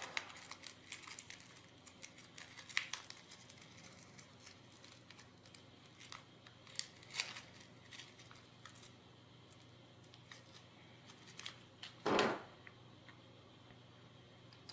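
Small metal screws and nuts clicking and jingling in a small plastic bag as it is handled, with some plastic crinkling. A louder rustle comes about twelve seconds in.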